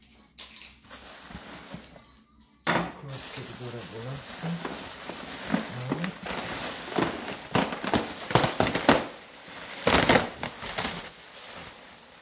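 Silver plastic packaging wrap crinkling and rustling as hands pull it off a coilover kit in a cardboard box. It starts about two and a half seconds in as a steady crackle, with sharper crinkles toward the end.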